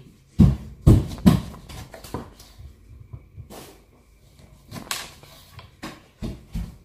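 Three loud knocks close together in the first second and a half, then lighter scattered clicks and taps, like household objects being handled.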